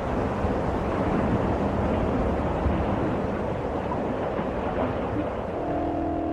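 Steady rushing roar of wind and sea, heavy and low. Near the end, held music notes come in over it.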